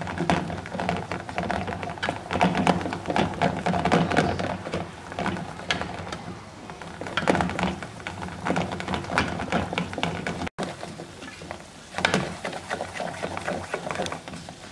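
A spoon scraping and knocking against the sides and bottom of an aluminium pot while stirring a roux of flour and melted butter: a dense, irregular run of scrapes and clicks. It breaks off for an instant about ten seconds in.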